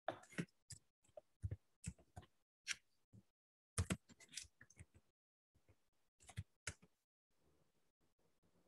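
Computer keyboard keys typing: faint, irregular clicks in short runs, with a pause about five seconds in, stopping about seven seconds in.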